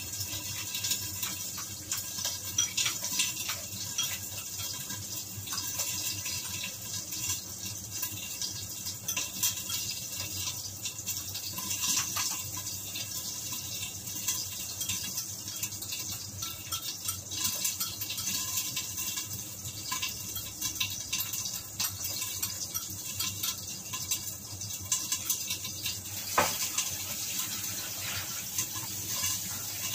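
Pork cheek sizzling and crackling in its own rendered fat in a covered wok, a steady high hiss with frequent small pops and one sharper pop near the end.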